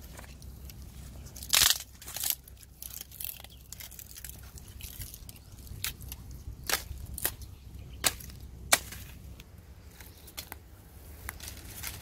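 Dry wooden sticks snapping and cracking as they are broken by hand and underfoot: a series of sharp cracks, the loudest about one and a half seconds in.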